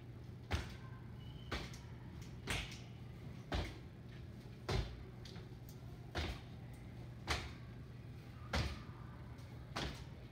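Feet landing from two-footed hops on a hard tiled hallway floor: about nine dull thuds, roughly one a second, spaced a little wider near the end. A steady low hum runs underneath.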